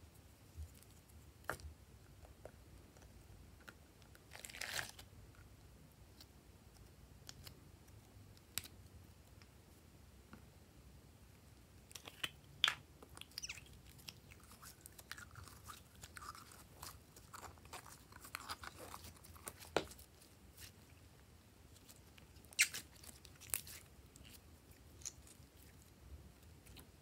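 Hands mixing and pressing glossy slime: faint, scattered sticky clicks and crackles, with a few louder crunchy snaps.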